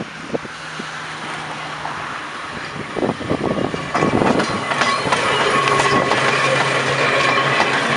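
Manx Electric Railway tramcar No. 1 rolling up and passing close by on the rails, getting louder as it comes. A steady low hum runs under it, its wheels clack over rail joints and points about three to four and a half seconds in, and thin high tones from the wheels come in near the end.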